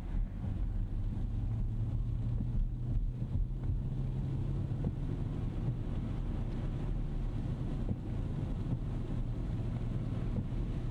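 Steady low drone from inside the cabin of a 2025 Rolls-Royce Ghost Series II on the move: road and tyre noise, with a faint engine hum underneath.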